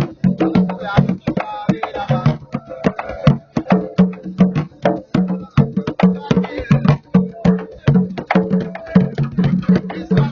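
Candombe drumming on several tamboriles, played with hand and stick. A fast, steady rhythm of deep pitched drum tones mixed with sharp, dry stick strokes.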